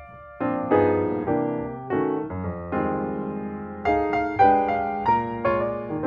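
Background piano music: a melody of notes struck in quick succession, picking up after a brief pause at the start.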